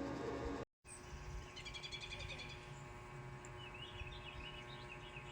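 Faint bird chirping in quick clusters of short high notes, twice, over a steady electrical hum.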